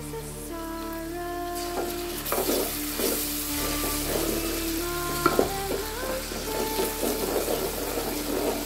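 Chopped onions and ground spices sizzling in hot oil in an aluminium pot, stirred and scraped with a wooden spatula. The sizzle thickens about two seconds in.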